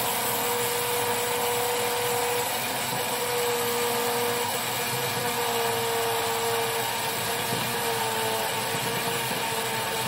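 Small electric seed grinder running steadily, grinding flaxseed and chia seed together: a continuous motor whine that wavers slightly in pitch.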